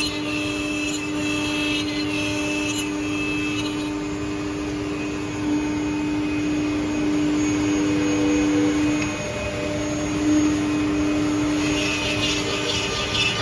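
Spindle motors of a four-head CNC mortising machine running with a steady whine over a hiss; the whine breaks off briefly about nine seconds in and then resumes.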